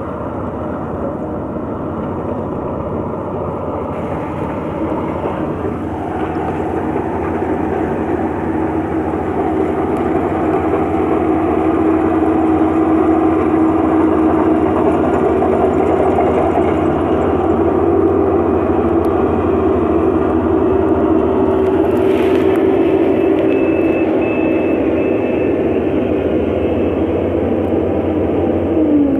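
Kubota DC-35 rice combine harvester running, a steady loud machine drone with a low humming note, building louder over the first dozen seconds and then holding.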